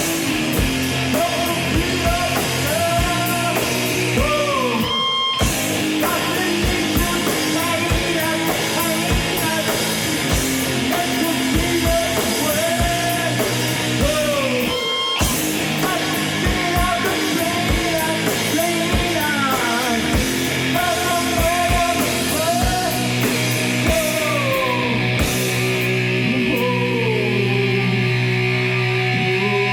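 Grunge/noise-rock band playing live: distorted Fender Telecaster electric guitar with bending notes over a pounding drum kit. The whole band cuts out briefly twice, about five seconds in and again about fifteen seconds in.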